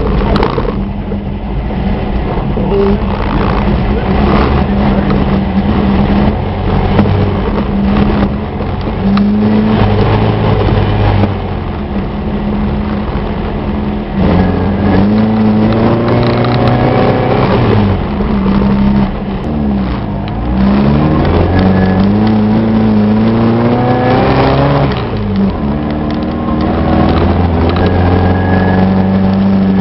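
Off-road VW's engine driving over a rough dirt trail, heard from inside the cab. Its pitch rises and falls again and again, most of all in the second half, as the driver revs and shifts, with knocks and jolts from the rough ground.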